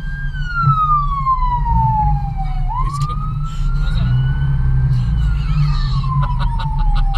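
Emergency vehicle siren on its slow wail: the tone rises and falls twice, each sweep taking a couple of seconds. It is heard from inside a car over steady low road and engine rumble.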